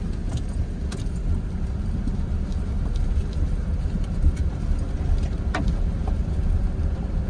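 Pickup truck driving slowly over a rough dirt trail, heard from inside the cab: a steady low rumble of engine and tyres, with a few light clicks and rattles and one sharper knock about four seconds in.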